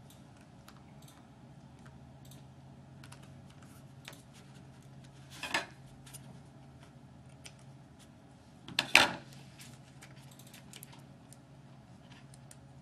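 Small clicks and taps of hands working paper card pieces and a peel-off sticker on a cutting mat, with a snip of scissors through ribbon about five and a half seconds in and a louder knock about nine seconds in. A faint steady hum runs underneath.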